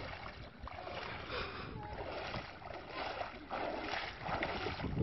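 Feet splashing and sloshing through shallow lake water as a person wades out, a burst of splashing with each step, about one a second.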